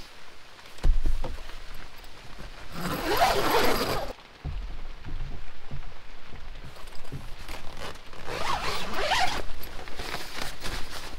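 A zipper drawn in two long pulls a few seconds apart, each lasting about a second, with a couple of soft low thumps and fabric rustling between.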